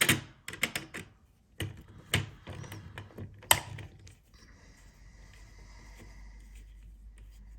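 Sharp clicks and taps as the terminal screws on a wired doorbell chime are loosened, several in the first few seconds. After that comes a steady faint hum with a thin high whine.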